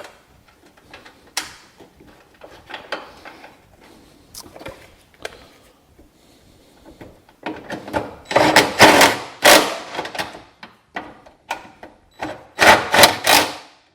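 Electric impact driver with a 10mm socket running in two rattling bursts, one about halfway through and one near the end, driving down the two nuts that hold the hood ajar switch. Before them come small clicks and taps as the nuts are threaded on by hand.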